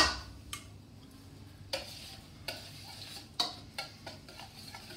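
Wire whisk stirring a thick yogurt marinade in a stainless steel mixing bowl: a soft, wet stirring with a few scattered clinks of the whisk against the bowl.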